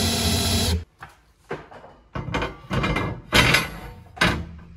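Cordless drill running as it bores through a steel plate, cutting off under a second in; then a series of clunks and knocks as a steel plate is handled and set down on a van's bare metal floor.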